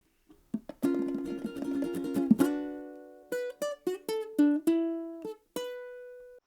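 Solo plucked string instrument music: a quick run of strummed chords, then a short phrase of single plucked notes. The last note rings on and is cut off suddenly near the end.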